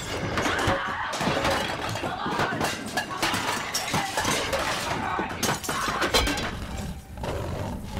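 A rapid run of crashes in a kitchen fight: crockery and glass shattering and kitchenware clattering, over and over, with heavy knocks between them.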